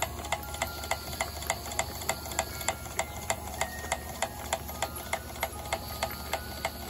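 Model Worthington steam pump running, its valve gear and pistons clicking in a steady rhythm of about three clicks a second over a low hum as it pumps feed water into the boiler.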